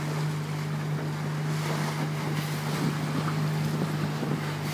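A small motorboat's engine runs under way with a steady drone, with wind on the microphone and water washing past.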